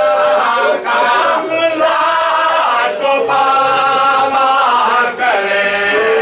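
Male voices chanting a marsiya, a Shia elegy, unaccompanied, with long held notes broken by brief pauses.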